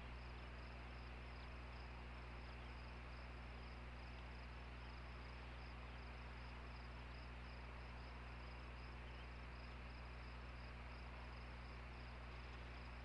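Steady low electrical hum and hiss on the nest camera's audio, with a faint, rapidly pulsing high-pitched trill.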